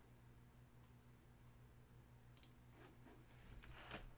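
Near silence: faint room tone with a low steady hum, a couple of faint clicks about two and a half seconds in, and faint rustling with a click near the end.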